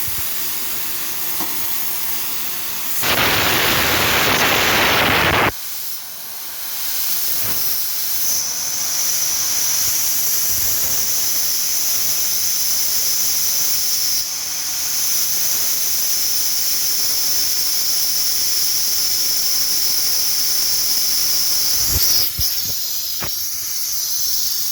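Refrigerant gas hissing out of a Daikin air conditioner as the system is vented before its failed compressor is replaced. A louder rush lasts about two seconds a few seconds in, and then a steady high hiss continues.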